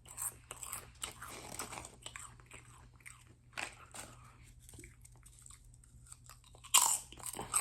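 Close-up chewing of puffed pork rinds: an irregular run of sharp, crisp crunches as they are bitten and chewed, with a louder crunch near the end.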